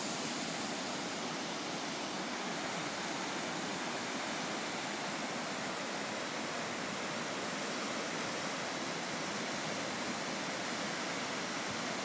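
Ayutsubo Falls, several streams of water pouring over a rock ledge into the river, giving a steady, even hiss of falling water.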